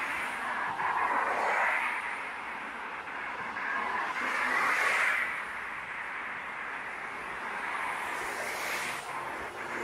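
Road traffic going by: a steady wash of tyre and engine noise that swells as vehicles pass, about a second in and again around five seconds.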